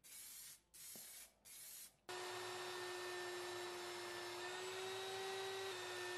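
An aerosol spray can gives three short hisses, each about half a second long. About two seconds in it gives way to a belt sander running steadily with a steady whine, the steel of an old saw blade held against the moving abrasive belt.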